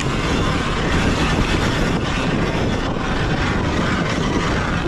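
Sur-Ron Ultra Bee electric dirt bike ridden at speed on a dirt trail: a steady rush of wind on the microphone and tyre and chassis noise over the ground, with no engine note.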